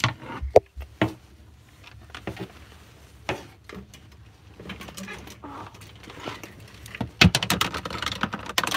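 Rustling and handling noise with scattered sharp knocks and clicks, busiest in a dense run near the end.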